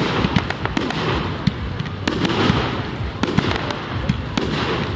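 Fireworks going off in quick succession: a dense, irregular run of sharp cracks and bangs from bursting stars over a continuous rush of noise.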